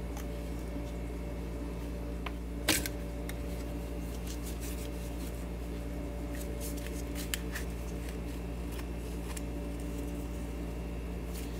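Handling noise as a metal tube shield is slid off an old radio chassis and a glass vacuum tube is worked out of its socket: one sharp click about three seconds in and a few faint ticks, over a steady low hum.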